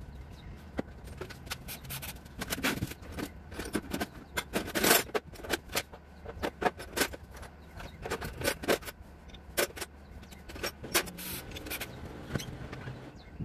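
Loose metal tools or parts clinking and clattering as they are handled: an irregular run of sharp knocks and jingles, thickest in the middle.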